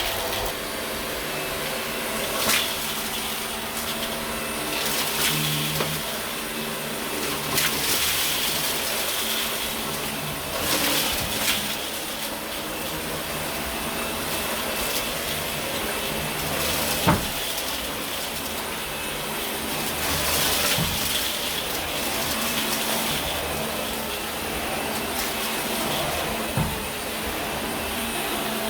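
Dyson vacuum cleaner running steadily on carpet, with a constant motor hum under a hiss that swells briefly every few seconds. There is a single sharp click about two-thirds of the way through.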